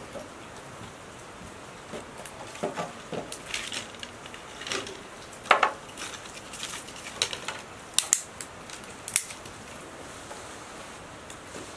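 Dry sticks and twigs snapping and knocking as they are broken and fed into a small wood fire: a string of irregular sharp cracks between about two and nine seconds in.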